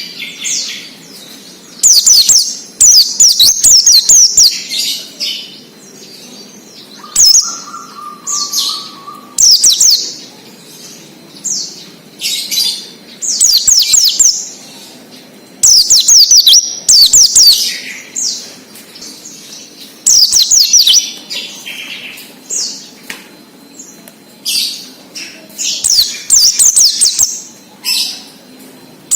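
A white-eye (pleci, Zosterops) singing its 'ngalas' song: loud, high-pitched phrases of quick falling twitters, each about one to two seconds long, repeated with short pauses between them.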